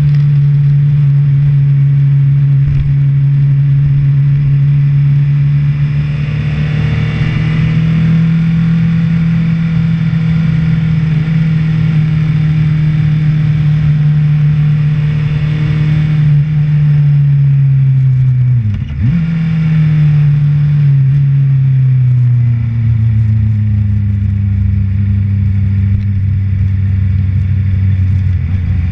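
Honda CBR600RR inline-four engine running at a steady, moderate pitch with wind noise. About 19 s in, the note dips briefly and then settles lower and eases down as the bike slows.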